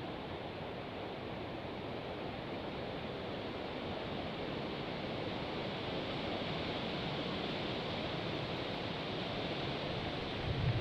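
Steady rushing of strong wind blowing through the trees along the creek, swelling slightly toward the end.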